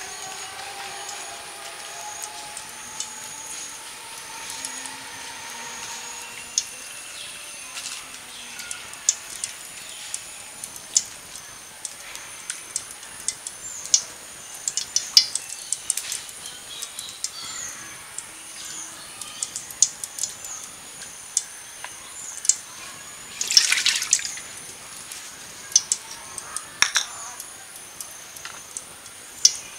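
A hand squeezing and kneading wet fish roe with spice paste and water in a steel bowl: irregular wet squelches and clicks, with one louder burst about two thirds through.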